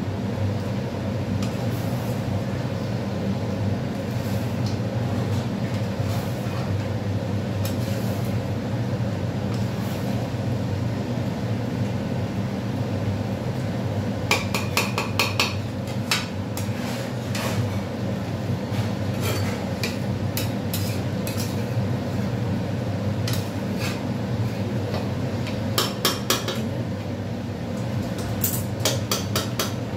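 Metal spatula scraping and clinking against a large metal kadai as chicken and potato pieces are stirred and fried down. The scrapes come in quick clusters from about halfway in, over a steady low hum.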